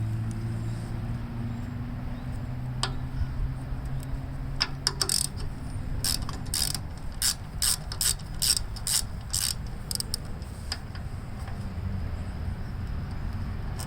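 Hand ratchet wrench clicking in a run of about a dozen short strokes, working the nuts on the mounting bolts of a tractor's foot starter button. A steady low hum runs underneath.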